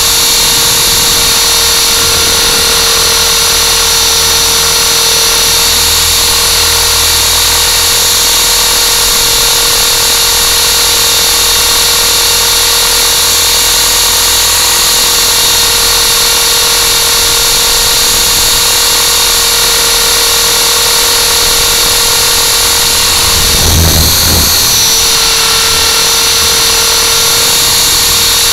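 Hovering RC aircraft's electric motors and rotors whining steadily, heard from its own onboard camera. A brief louder, rougher surge comes about four seconds before the end, and the pitch shifts with it.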